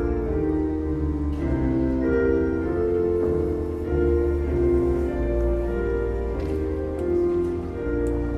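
Slow hymn introduction on a keyboard: held chords over a steady bass, the harmony changing about once a second, leading into a choir.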